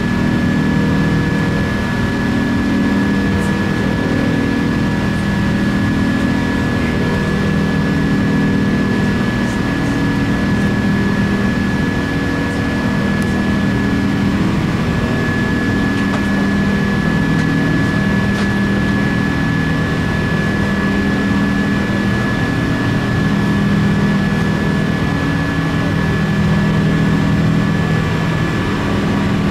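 Cabin noise inside an Airbus A380-800: a steady loud drone of its jet engines and the air rushing past. A low hum swells and fades every few seconds over it, and a thin high whine holds steady.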